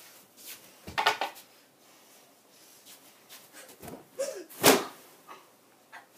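Dull thumps of a person throwing himself onto someone wrapped in blankets on a bed, a wrestling-style slam. One thump about a second in, then a few smaller knocks and the loudest landing about four and a half seconds in.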